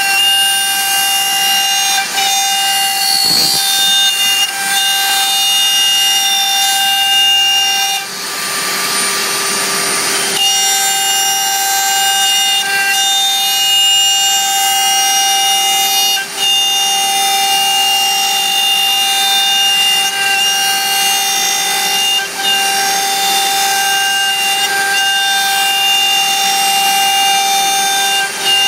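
DIY CNC router spindle running with a steady high whine as the bit cuts ¾-inch MDF. A hissier stretch of about two seconds comes about eight seconds in.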